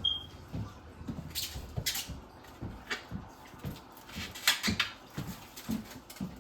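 Raw chicken being washed by hand in a bowl of water: brief splashes and swishes with soft knocks of the meat and bowl.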